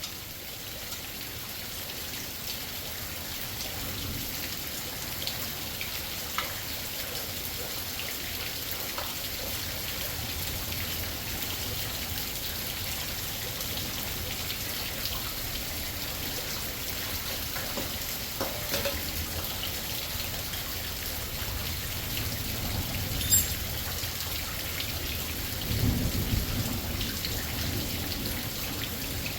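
Heavy rain falling steadily, with a low rumble of thunder rising about 26 seconds in. A few small clicks and knocks are heard now and then.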